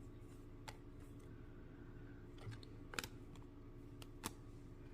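A few faint, sharp clicks of stiff Topps Chrome trading cards being handled and thumbed through, spaced a second or more apart, over a low steady hum.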